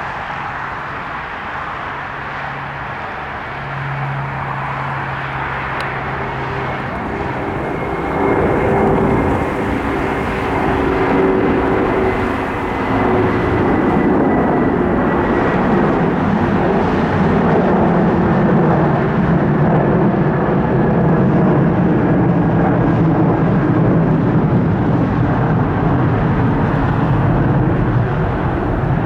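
Boeing 747-400 freighter's four GE CF6 turbofans spooling up to takeoff power, growing louder about four and eight seconds in, then holding a steady, loud noise with the CF6's buzz.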